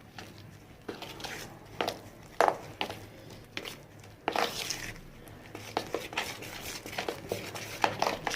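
Ground black lentil batter being mixed in a bowl: irregular knocks and scrapes every half second to a second, with a longer scrape about four and a half seconds in.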